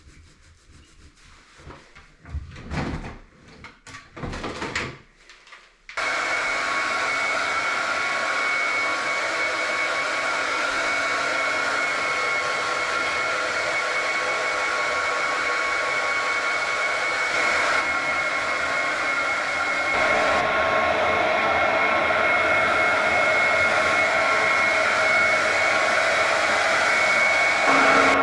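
A few seconds of irregular rubbing and rustling, then a hair dryer switches on about six seconds in and runs steadily with a constant whine, blow-drying a freshly bathed small dog; its sound shifts slightly about two-thirds of the way through.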